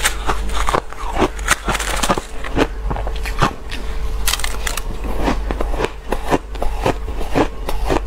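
Close-up crunching of shaved ice being bitten and chewed, a dense run of sharp crackling crunches in quick succession, with a metal spoon scooping ice from a bowl. A faint steady hum runs underneath.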